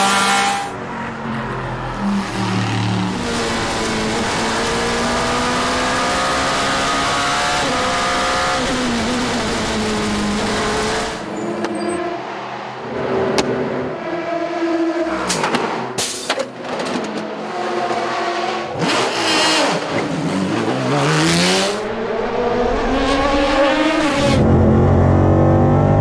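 Racing car engines heard from onboard, pitch climbing in steps through the gears and dropping on downshifts. A few sharp cracks come around the middle.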